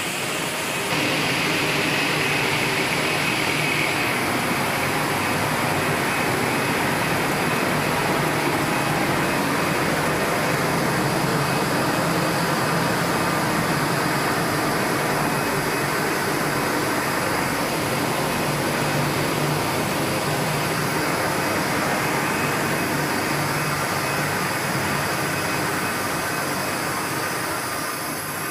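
Commercial popcorn production line machinery running: a steady mechanical noise of motors, fans and a conveyor, with a faint high tone for a few seconds near the start.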